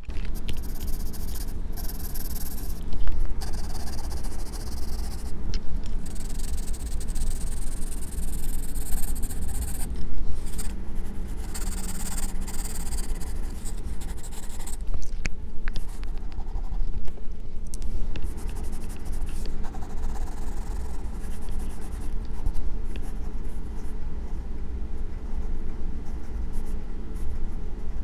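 Graphite pencil scratching across sketch paper in runs of shading and outline strokes, the hiss coming and going as the strokes start and stop, over a steady low rumble.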